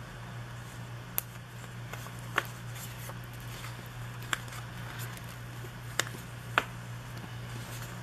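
A few short, sharp clicks and taps of stickers and paper being handled and pressed down on a planner at a desk, over a steady low hum.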